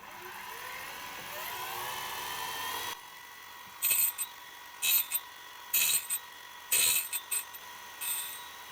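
The mini cutter grinder's spindle motor spins up with a rising whine over about three seconds, then runs at a steady high whine. After that come five short, harsh bursts about a second apart as the grinding wheel touches the metal.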